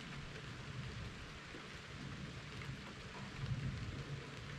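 Steady rain falling, an even hiss, under a low rumble that swells about three and a half seconds in.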